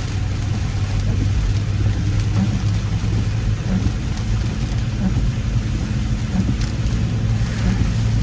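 A car driving through heavy rain: a steady low rumble of engine and tyres under a constant hiss of rain on the vehicle and road.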